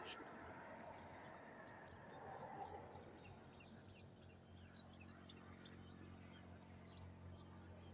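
Near silence: faint outdoor ambience with scattered tiny high ticks, a single sharp click about two seconds in, and a low steady hum in the second half.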